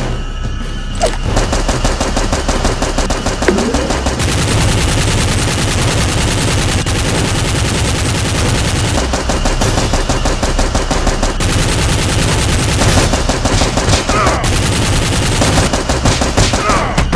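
Rapid automatic gunfire: dense, overlapping bursts of machine-gun fire, starting about a second in and hardly pausing.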